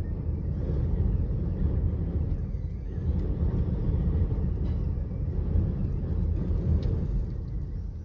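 Strong gusting wind of a dust storm blowing across the microphone: a low, uneven rumble that swells about a second in and eases near the end.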